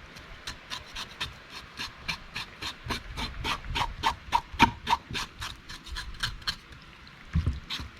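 Fillet knife scraping the small, fine scales off a pompano, a quick run of short rasping strokes, several a second.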